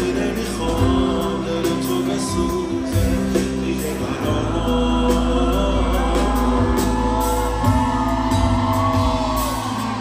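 Live pop band with drums and electric guitars playing a slow song, with a male lead vocal singing over it, heard through the reverberation of a large concert hall.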